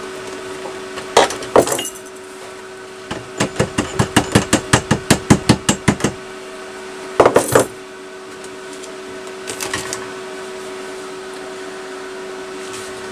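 Hammer blows on a steel exhaust baffle tube, likely straightening a freshly tack-welded perforated baffle. Two strikes, then a fast run of about fifteen blows at roughly five a second, then a double strike and a few light taps, over a steady mechanical hum.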